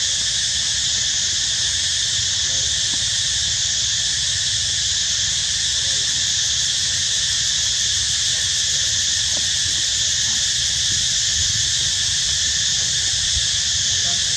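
Steady chorus of insects: a high, shrill drone that holds level without a break.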